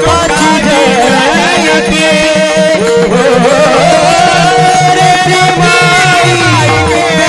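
Devotional kirtan music: a male voice singing an abhang melody with wavering ornaments, accompanied by a harmonium with a steady held drone and a hand drum keeping a beat.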